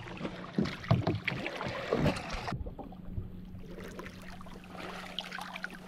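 Water splashing and sloshing around a tarpon's head held in the sea beside a paddleboard as the fish is towed to revive it, in irregular splashes. About halfway the sound turns muffled and duller, as if the camera dips to the water line.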